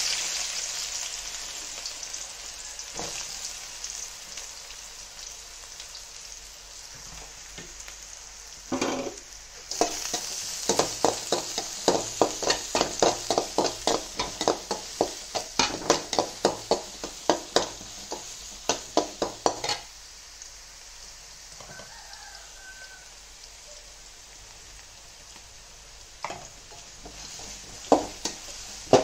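Sliced onions sizzling in hot oil in a hammered aluminium kadai. Through the middle, a metal spatula scrapes and taps the pan in quick, regular strokes, about two to three a second, with a few more strokes near the end.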